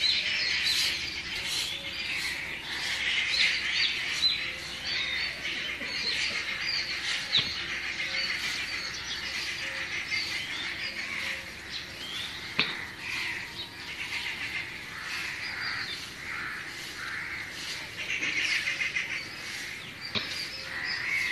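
Many small birds chirping and twittering together in a dense, continuous chorus, with two sharp clicks, one about halfway through and one near the end.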